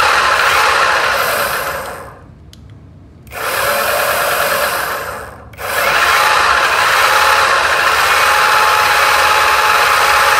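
Electric skateboard's dual drive motors and wheels spinning at high speed under remote throttle: a loud, steady motor whir. It drops away about two seconds in and again briefly about five and a half seconds in, then runs steadily.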